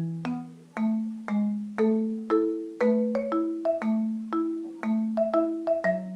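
Background music: a light, bouncy tune of struck notes that ring and fade quickly, about two to three a second, over a line of low held notes.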